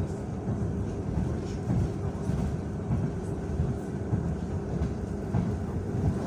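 Suburban electric train running, heard from inside the carriage: a steady low rumble of the wheels and car body.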